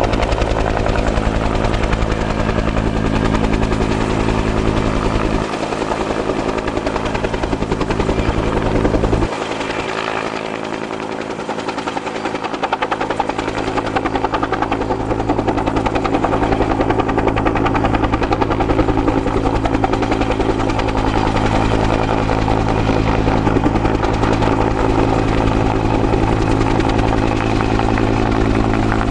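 Bell 205A-1 (Huey) helicopter with its two-bladed main rotor and Lycoming T53 turboshaft, flying low overhead on a longline. It runs steadily and loudly, easing off a little for a couple of seconds about ten seconds in.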